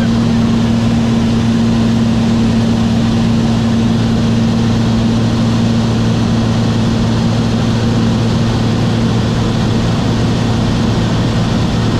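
Small high-wing propeller plane in flight, heard from inside the cabin: a steady, loud engine and propeller drone with a strong low hum over rushing airflow.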